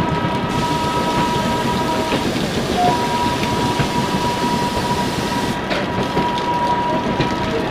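Running noise of a moving passenger train heard from on board: a dense steady rush and rumble of wheels on rail with a thin, steady high whine. An extra hissing rush comes in about half a second in and drops away about five seconds later.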